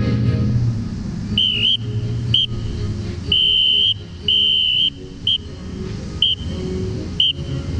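Whistle blown in a pattern of signal blasts: two short, then two long, then three short spaced about a second apart, over soft background music.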